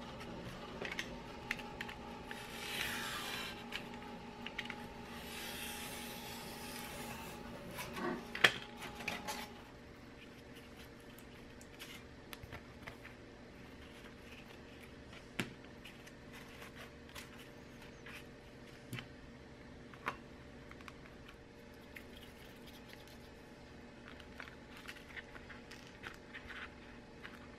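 Hands handling corrugated plastic and foam boards on a cutting mat: rubbing and scraping with scattered light taps and clicks. Two stretches of hissy scraping come in the first eight seconds, then a sharp knock about eight seconds in. After that it is quieter, with only occasional clicks.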